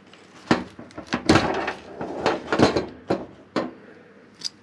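Handling noises: an irregular run of knocks and clatters of objects being picked up, moved and set down, busiest about a second in, with a few single knocks after.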